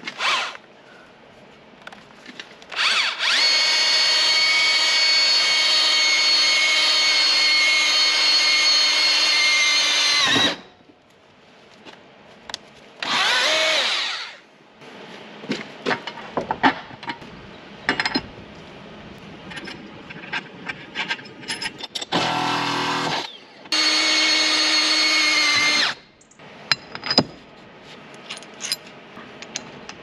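Power drill boring a pilot hole, running in bursts: a long steady run of about seven seconds, a shorter run a few seconds later, then two more short runs near the end. Scattered clicks and knocks between the runs.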